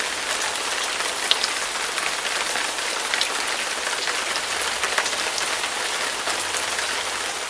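Steady rain falling: an even hiss with many scattered drop ticks, at a constant level.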